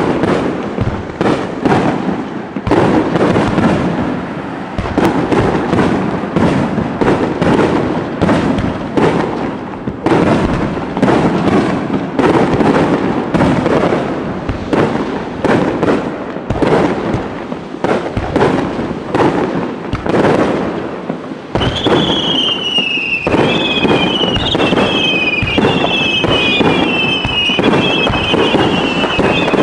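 Fireworks finale: a dense, unbroken barrage of aerial shells bursting in rapid succession. From about two-thirds of the way in, a run of whistles that fall in pitch, one after another, sounds over the bursts.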